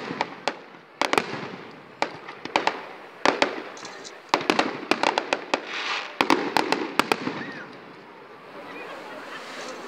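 Aerial firework shells bursting in a quick series of sharp bangs, each trailing off in echo. The bangs thin out after about seven seconds.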